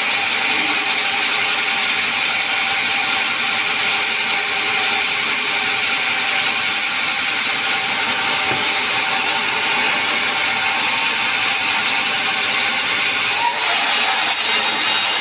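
Sawmill saw running through pine timber, a loud, steady mechanical whine and rush of noise that hardly changes.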